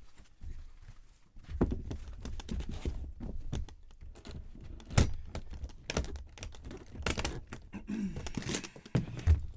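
Trading cards and their plastic holders being handled on a table: a run of light clicks, taps and rustles, with sharper knocks about five, six, seven and nine seconds in.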